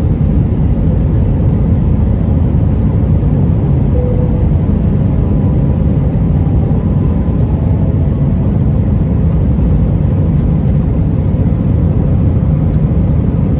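Airbus A321 cabin noise heard from inside the cabin: a steady low rumble of the jet engines and rushing air, unchanging throughout.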